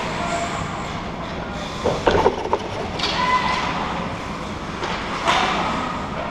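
Ice hockey play close to the net: a steady hiss of skates scraping the ice, with a quick cluster of sharp stick and puck knocks about two seconds in, another a second later and one more near the end.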